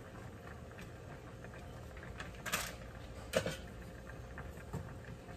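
A spoon scooping powdered sour-soup mix from a packet, over a low steady hum: a brief rustle about two and a half seconds in, then a sharp click of the spoon a second later and a faint tick after that.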